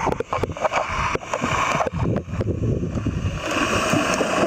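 Pool water sloshing and gurgling around a submerged camera as a dog paddles past, with irregular knocks and splashes throughout.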